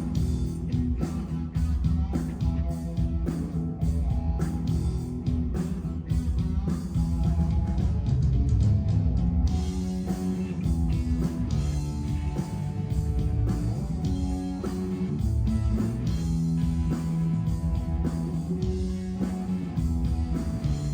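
Rock music with guitar to the fore, playing steadily.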